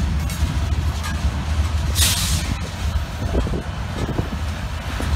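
Freight train of loaded steel-coil cars rolling slowly past, a steady low rumble of wheels on rail, with a short burst of hiss about two seconds in.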